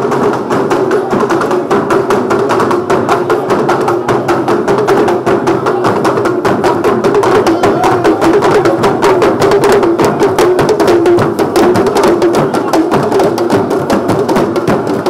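Traditional Asante drumming: a loud, fast, dense run of drum and percussion strokes.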